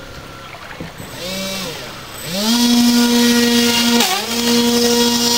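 Radio-controlled model boat's small motor whining as the boat speeds across flood water. It revs briefly about a second in, then rises to a steady high whine, dipping for a moment near the middle.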